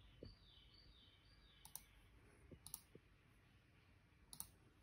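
Near silence broken by three faint, sharp clicks spread over a few seconds, from operating the laptop while choosing a server in a speed-test app.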